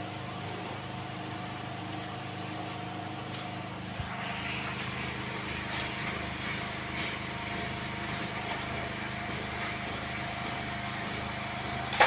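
Steady mechanical hum with a faint steady whine. A brief knock comes about four seconds in, and after it the hum grows a little louder and deeper.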